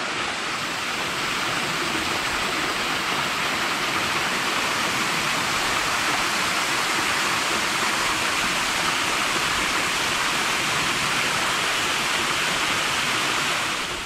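Small waterfall pouring down stepped rock ledges into a shallow plunge pool: a steady, even rush of falling and splashing water.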